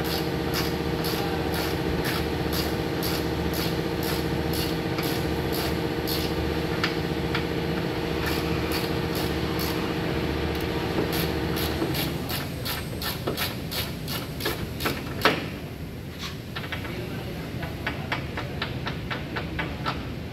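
Steady machine hum that cuts off about twelve seconds in, over an even run of sharp clicks, two or three a second, which gets quicker near the end, with one louder knock about fifteen seconds in.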